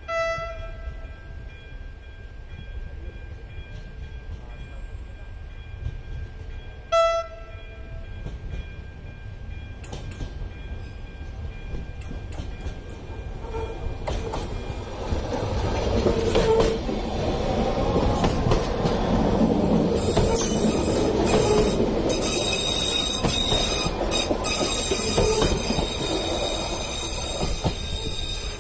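ZSSK Class 425.95 narrow-gauge electric multiple unit gives two short horn toots about seven seconds apart, then draws closer and passes with a rising rumble and clicks of its wheels over the rail joints. A high steady wheel squeal joins in about twenty seconds in as it takes the curve.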